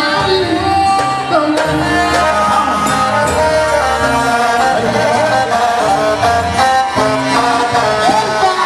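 Loud Egyptian popular dance music mix: a bending melody line over a steady drum beat.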